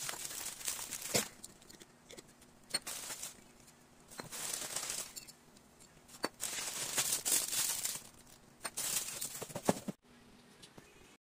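Bubble wrap crinkling in intermittent handfuls as it is pulled off a glass spice jar, with a few sharp clicks among the rustling.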